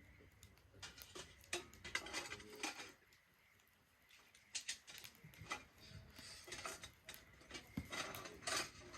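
Wood fire crackling in a Solo Stove Ranger fire pit: irregular pops and snaps, with a lull of about a second near the middle.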